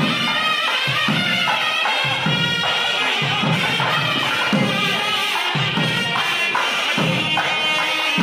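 Traditional music: a sustained melody stepping from note to note over a regular drum beat.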